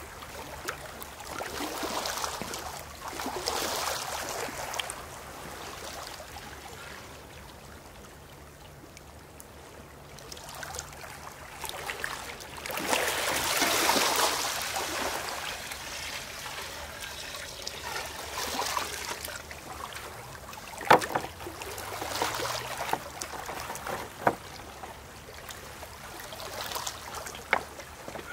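Small waves washing over the stones at the water's edge, rising and falling in swells. About halfway through, seawater is poured from a white tray into a metal bucket, a louder rush lasting a few seconds. A few sharp knocks come near the end.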